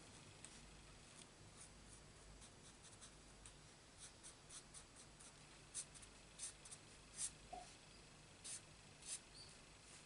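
Faint scratching of a Stampin' Blends alcohol marker's felt tip on cardstock as short colouring strokes, sparse at first and more frequent in the second half.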